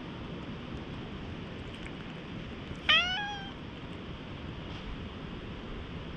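A tabby stray cat meows once, about halfway through: a short call that rises and then holds.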